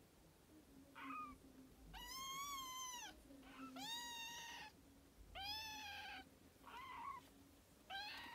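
Young kittens mewing in a string of about six high, thin calls, three of them long and arched in pitch.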